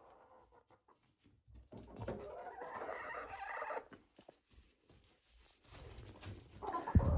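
Young hens pecking crushed eggshells from a hand, with light pecking taps, a paper towel crinkling and soft clucking. A sharp knock comes near the end.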